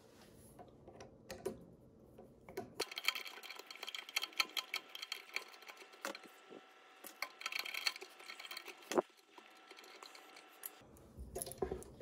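Faint, irregular light clicks and ticks of a screwdriver working the small screws of the ground-wire terminals on an air compressor pressure switch, with one sharper click about nine seconds in.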